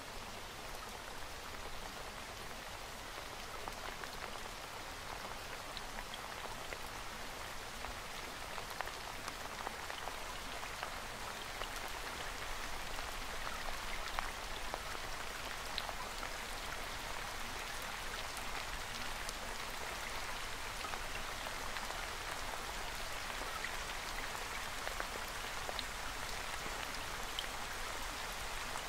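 Steady rain: a dense even patter with many small scattered drop ticks.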